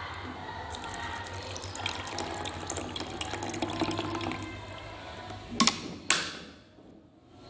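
Drinking water being poured into a glass of lime juice and sugar, a splashing trickle that runs for several seconds, followed near the end by two sharp knocks.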